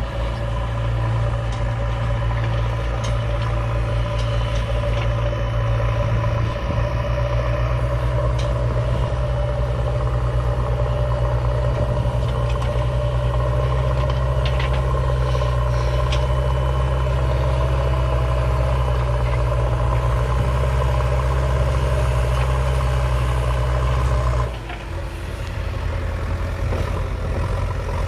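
Heavy diesel engine of a backhoe loader running steadily with a deep, even note, a few faint clinks over it. About 24 seconds in the deep note drops away and the engine runs on more lightly, as if throttled back.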